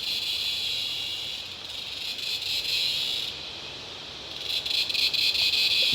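Chorus of cicadas buzzing in a dense, high shrill band that swells and fades, easing off about three and a half seconds in and building up again near the end.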